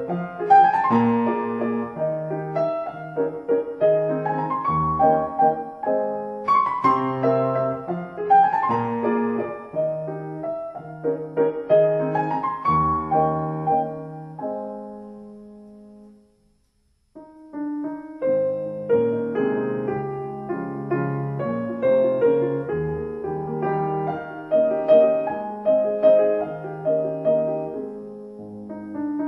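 Solo piano music. The playing fades out about sixteen seconds in, stops for about a second, then piano music starts again.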